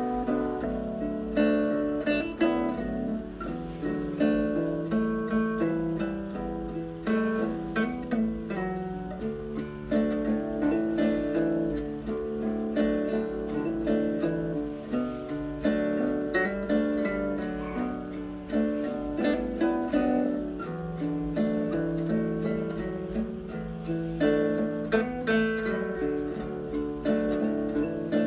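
Background music: acoustic guitar, plucked and strummed notes at an even pace.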